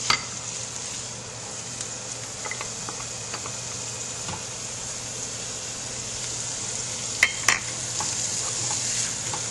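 Chopped onions, garlic and pork sausage sizzling steadily in a stainless steel skillet over a gas burner, stirred and scraped with a wooden spoon as chopped red bell pepper goes in. Two sharp clacks against the pan come about seven seconds in.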